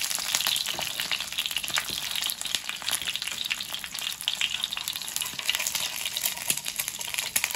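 An egg frying in hot oil in a skillet, sizzling steadily with a dense crackle of small pops.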